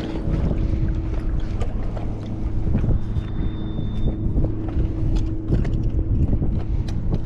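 Wind rushing over the microphone on open water, with a steady low drone underneath and scattered small knocks throughout.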